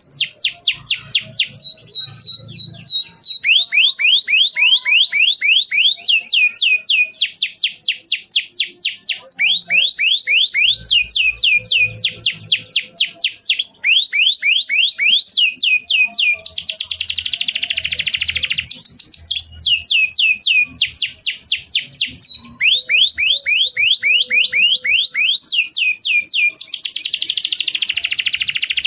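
Domestic canary singing a long unbroken song of rapid trills: phrases of quickly repeated high, downward-sweeping notes. Two harsher buzzing rolls come about halfway and near the end.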